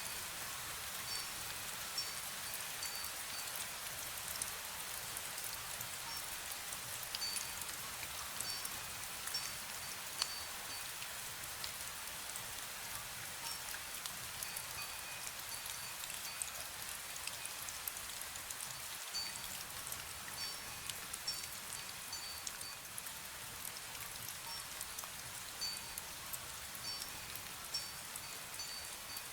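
Fine misty rain falling steadily, with a small wind bell tinkling now and then in short clusters of high, clear notes.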